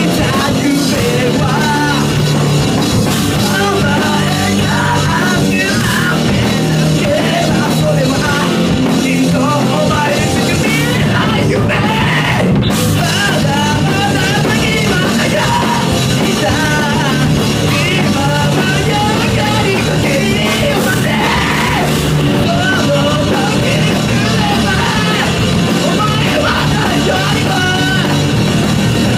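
Live hard-rock band playing loudly: electric guitar, electric bass and a Yamaha drum kit, with a singer's vocals over them.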